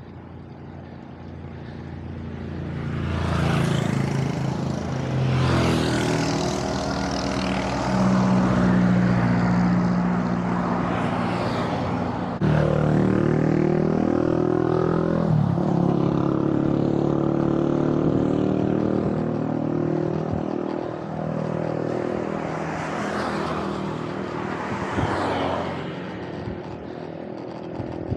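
Motor traffic passing close by on the road: engine hum and tyre noise swell about three seconds in, stay strong with engine pitch shifting as vehicles go by, then fade near the end.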